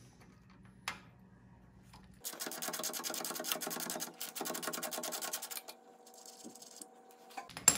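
Socket ratchet clicking rapidly in two quick runs as a half-inch nut is backed off a bolt. A single sharp click comes near the end.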